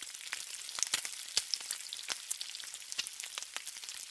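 Food frying on a hot flat-top griddle: a steady sizzle with frequent sharp crackles and pops of spitting fat.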